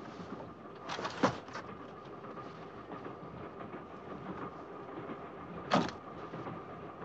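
Steady rumble of a railway carriage running on the rails, with a faint steady whine, broken twice by a sharp clack: once about a second in and again near six seconds in.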